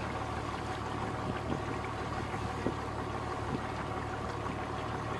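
Engine of an old wooden fishing boat running at a steady, even hum while it cruises slowly over calm water.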